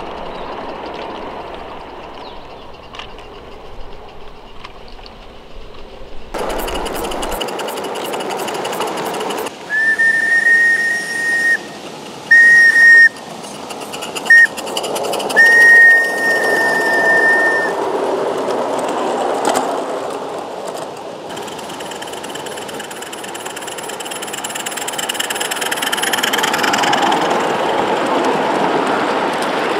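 Small live-steam garden-railway locomotive running with its train, a steady rattle of wheels and running gear. About ten seconds in its steam whistle blows four times: a long blast, a short one, a very short toot, then a long blast.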